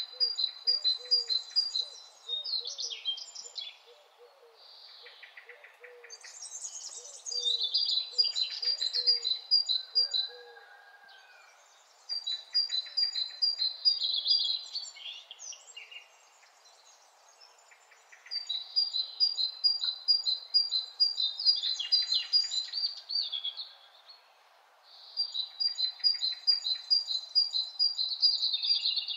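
A songbird singing in repeated phrases, each a few seconds of rapid high repeated notes, with short pauses between them, five times over.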